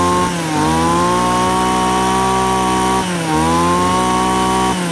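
Komatsu brush cutter's small two-stroke engine running at high revs on the throttle, which is eased off and opened again twice; the revs start to fall near the end.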